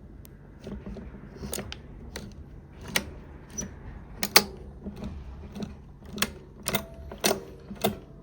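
Mechanism of an unpowered Teletype Model 33 being worked by hand, giving about a dozen irregular sharp clicks and clacks. The loudest comes about four seconds in.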